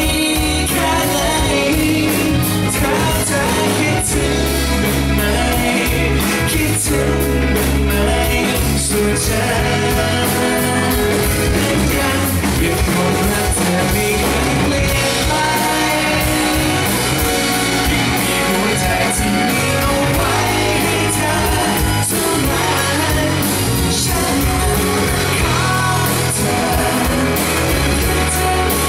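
Live pop-rock band playing a song through a PA: male lead vocals over electric bass, electric guitar, drums and keyboard, with a steady beat.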